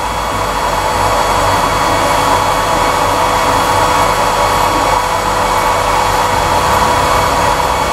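Steady whooshing blower noise with a faint hum of steady tones, swelling slightly in the first second: the air suction that draws the laser smoke away, with the laser engraver's air-assist pump.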